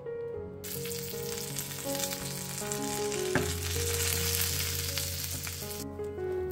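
Folded, filled tortillas frying in hot oil in a nonstick pan, sizzling steadily. The sizzle starts abruptly about half a second in and cuts off abruptly near the end, with one sharp click a little past halfway. Soft piano music plays underneath.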